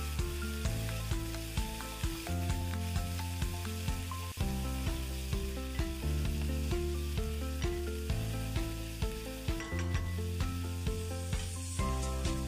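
Chopped onion sizzling as it fries in oil in a stainless-steel kadai, stirred with a wooden spatula. Background music with a steady run of notes plays over it.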